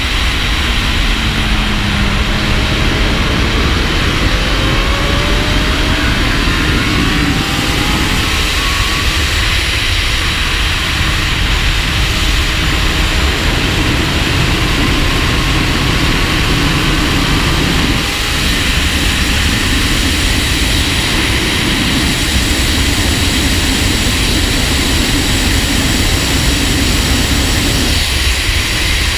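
Wind roaring over a shoulder-mounted camera at track speed on a 2017 Honda Fireblade SP, with the bike's inline-four engine faintly heard underneath. The engine note rises several times in the first ten seconds or so, then the steady wind takes over.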